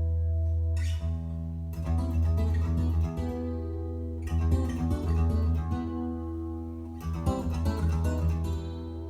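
Recorded music played through Klipsch R-28F floor-standing speakers driven by a vintage Sansui AU-999 amplifier: an instrumental guitar intro of plucked, ringing notes over a steady deep bass.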